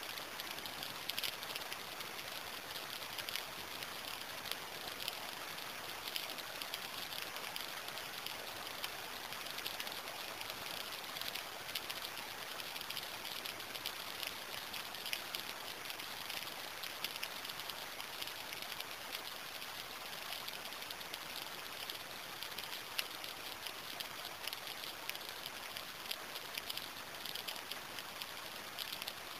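Steady rain falling, a dense patter of many small drops with no change in strength; no thunder is heard.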